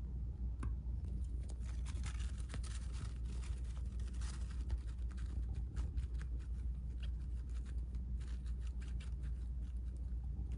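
Siberian chipmunk rustling and crinkling tissue paper and scratching at the fleece as it works inside its pouch: a dense run of small crisp ticks and rustles over a steady low hum.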